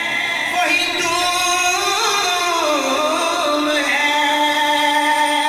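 Solo voice in melodic Quran recitation (tilawat), winding through ornamented pitch turns and then holding one long steady note from about two-thirds of the way through.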